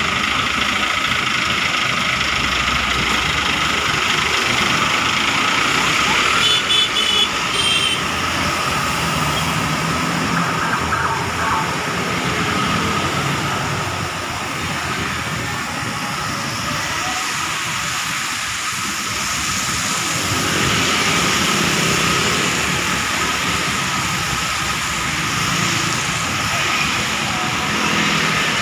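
Steady road traffic on a wet highway: cars, motorcycles, trucks and buses passing with tyre hiss and engine rumble. About six seconds in there is a short run of high-pitched beeps.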